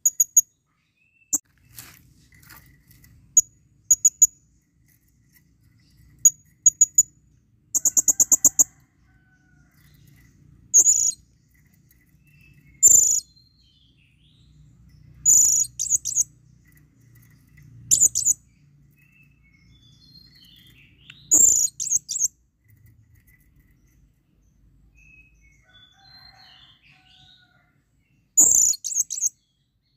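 Blue-crowned hanging parrot (serindit) giving shrill, high-pitched calls: short sharp notes and brief trills every second or two, with a longer fast trill about eight seconds in, then a pause of several seconds before a last call near the end. These are a male's breeding-mood calls to a female.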